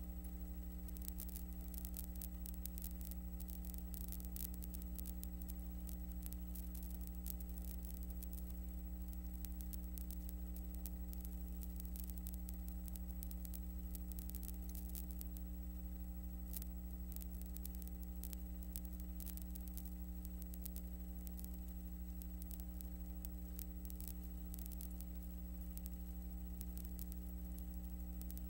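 Steady low electrical hum with a light crackle of static throughout, the noise of a silent film transfer; no sound from the game itself.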